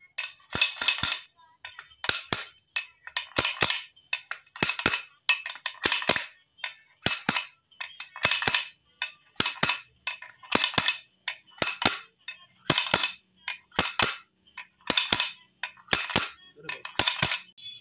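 Hammer blows on metal, struck in quick pairs about once a second, driving a new steering-head bearing race into the scooter's head tube with the old race as a drift. Each strike is sharp and ringing.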